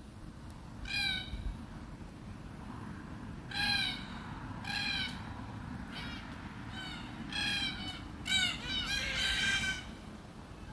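Red-tailed black cockatoo calling: a series of loud, pitched calls spaced a second or two apart, crowding together into a denser run near the end.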